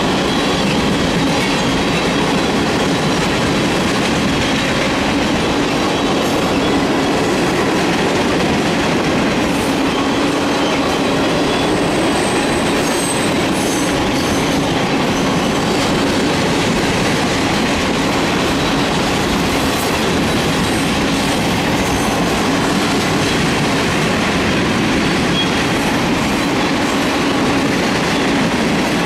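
Railroad tank cars of a freight train rolling past, with a steady, unbroken noise of steel wheels running on the rails.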